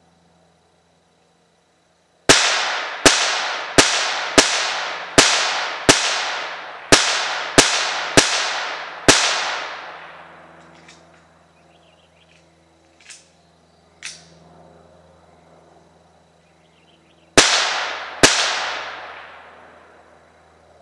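Ruger Mark III .22 pistol fired rapidly: ten shots in quick succession, roughly one every 0.7 seconds, each with a short echoing tail. After a pause of several seconds come two more shots near the end.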